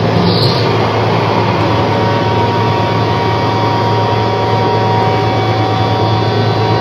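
A loud, steady wash of electronic noise with a low hum under it and a few faint steady high tones, holding level without a break; a short brighter hiss flickers just after the start.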